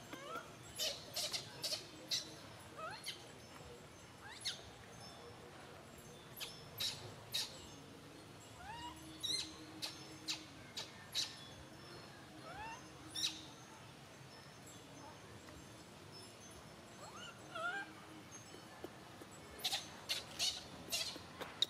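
Baby macaque sucking milk from a bottle's teat: scattered clusters of soft wet clicks and smacks, with a few short rising squeaks between them.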